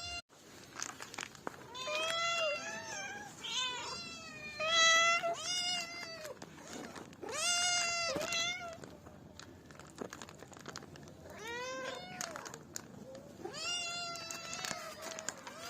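Cats meowing repeatedly: a string of high, drawn-out meows in bunches, some overlapping, with short pauses between.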